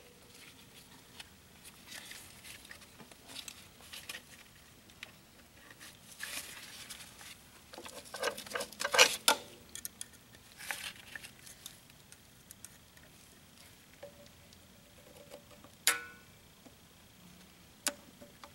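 Irregular small metal clicks, taps and scrapes of needle-nose pliers and a coil spring as the clutch release return spring is hooked onto the throwout bearing carrier of a Ford 8N tractor. The busiest handling comes about halfway through, and one sharper clink rings briefly near the end.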